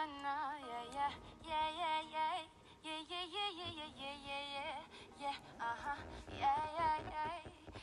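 Background music: a woman singing a wavering melodic line.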